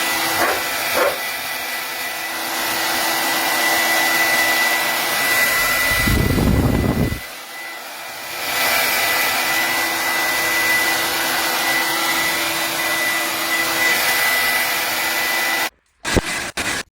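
ANNE BETTY 1800W ionic hair dryer running with a steady rush of air and a high whine. About six seconds in there is a low, loud gust, and a brief dip in level follows. It cuts off suddenly near the end, with a couple of short blips after.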